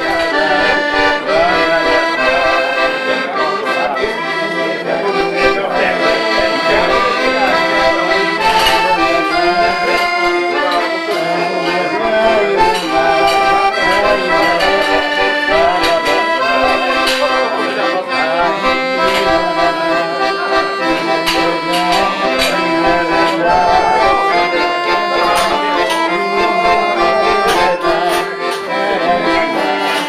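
Fratelli Pigini piano accordion playing a traditional folk tune, melody over steady chords without pause.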